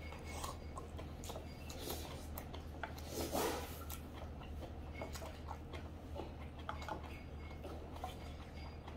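Close-up eating sounds: chewing, with small clicks and scrapes of a wooden spoon against stainless steel lunch containers, a louder chewing noise a little after three seconds, over a low steady hum.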